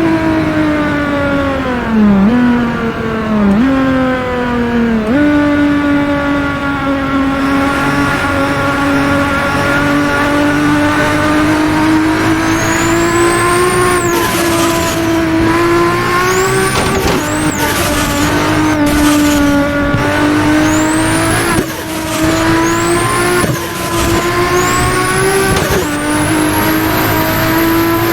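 750 hp Nissan Skyline R32 GT-R's engine being driven hard, its pitch falling and jumping through gear changes near the start. Then come repeated short pulls in which a high turbo whistle rises and cuts off sharply as the throttle closes, each followed by a quick turbo flutter.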